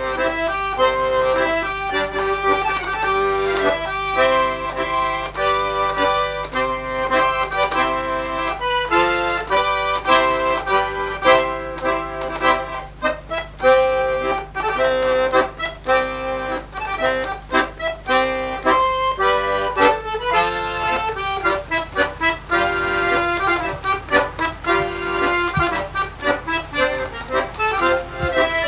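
Background music: a lively accordion tune played in quick, rhythmic notes.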